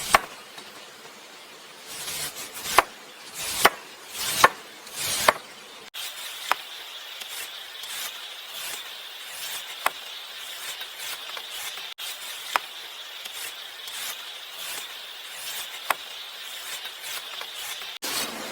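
A knife cutting fruit on a wooden board: about five loud slicing strokes in the first half, then a few single soft cuts over a faint high steady tone.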